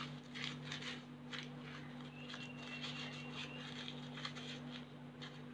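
Faint soft crinkling of a sheet of paper being crumpled and rubbed between the palms to soften it like tissue, over a steady low electrical hum.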